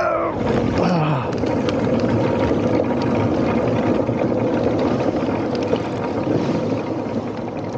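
Paramotor engine and propeller running steadily during a ground roll across grass on a takeoff attempt.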